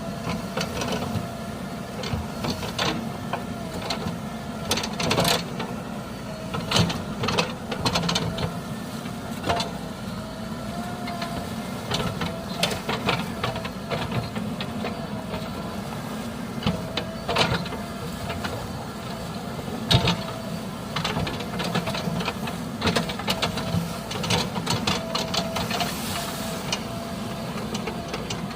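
Heavy diesel engine running steadily with a wavering whine, mixed with repeated metallic clanks and knocks.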